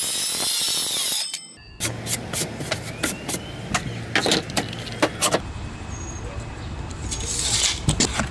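DeWalt circular saw cutting through a sheet-goods panel, cutting off about a second in. Then a run of sharp, irregular clicks from a one-handed bar clamp being ratcheted tight, followed by softer handling noise.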